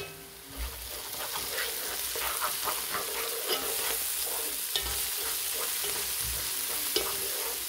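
Chopped onion, garlic and ginger sizzling in hot oil in a pot, while a silicone spatula stirs and scrapes through them. A steady frying hiss sets in about half a second in, with scattered light scrapes from the stirring.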